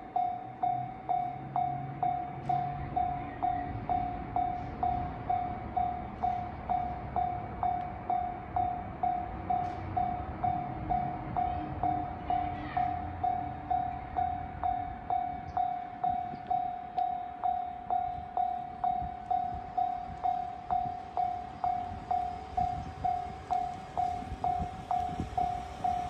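Japanese railway level-crossing warning bell ringing with its barriers down, an even, repeated single-pitched 'kan-kan' at about three strikes every two seconds. A low rumble runs underneath.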